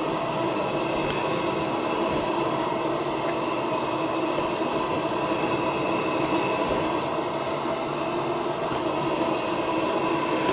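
Coleman gas camp stove and a pressurised gas lantern burning together: a steady hiss with a few held tones running through it.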